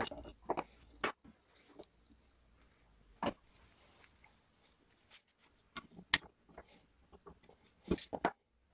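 Irregular metal clicks and knocks from handling and taking apart a miniature Soviet cast-metal sewing machine, with a rod being drawn out of its arm. The knocks come singly, with a short quiet spell in the middle and a quick cluster near the end.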